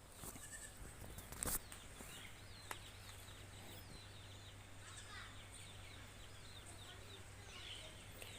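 Faint birds chirping in short scattered calls over a low steady hum, with one sharp click about one and a half seconds in.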